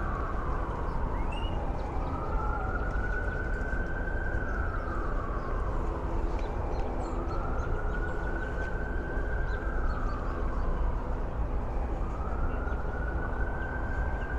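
Emergency vehicle siren in a slow wail, rising, holding high, then falling about every five seconds, over a steady hum of city traffic.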